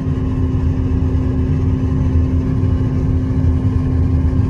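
Combine harvester's engine running steadily while the machine travels along a road: a constant low rumble with a steady hum above it.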